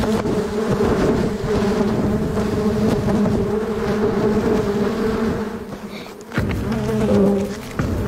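A swarm of honeybees buzzing around their open comb: a loud, steady hum that dips briefly about six seconds in, then picks up again.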